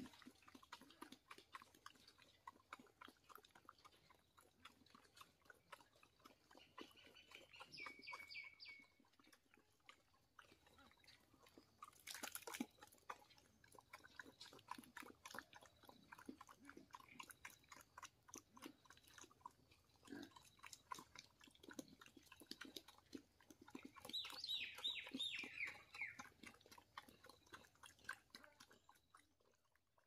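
A pig eating from a feed pan, quiet chewing and smacking heard as a steady run of small wet clicks. Two short spells of high, falling chirping calls, one about a quarter of the way in and a louder one near the end, and a single sharper knock near the middle stand out above it.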